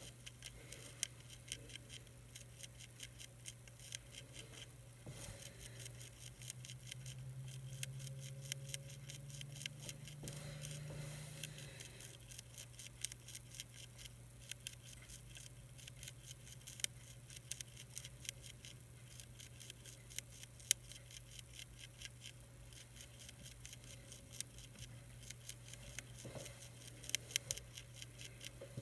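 Monarch caterpillar chewing the edge of a milkweed leaf: a fast, faint stream of tiny crunching clicks over a steady low hum.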